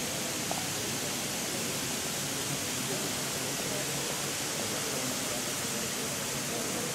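Sprinkler system spraying water mist in a steady hiss, with faint voices of onlookers underneath.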